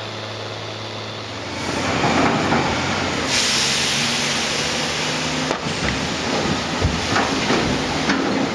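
Engine of a log-loading machine with a grapple claw running steadily. A loud hiss sets in about three seconds in and lasts about two seconds, and a few short knocks follow.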